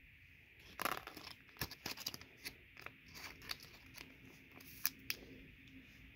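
Trading cards being handled: irregular light clicks and rustles of card stock and plastic, sharpest about a second in and again near five seconds.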